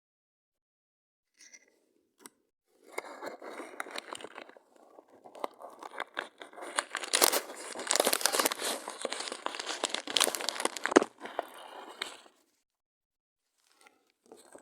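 Close crinkling, crackling and tearing of paper or plastic being handled, dense and uneven with many small snaps. It starts about three seconds in, is loudest in the middle with a sharp snap near the end, and stops a couple of seconds before the end.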